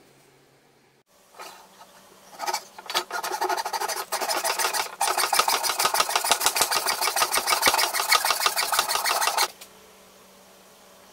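Hand saw cutting through a round wooden dowel: a few hesitant starting strokes, then fast, steady back-and-forth rasping strokes that stop abruptly about nine and a half seconds in as the piece is cut off.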